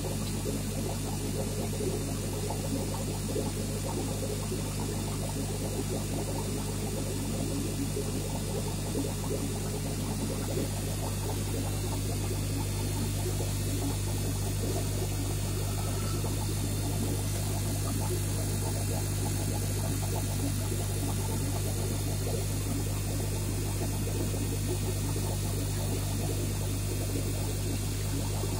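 Aquarium pump running with a steady low hum, with water bubbling and splashing at the surface.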